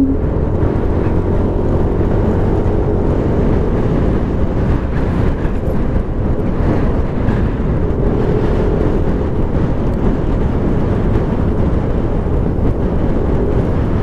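Yamaha Aerox scooter's single-cylinder engine running steadily at cruising speed, mixed with heavy wind rush over the camera microphone.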